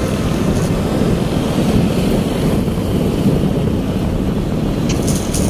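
Steady wind noise on the microphone together with the running noise of a motorbike riding along the road, a dense low rumble.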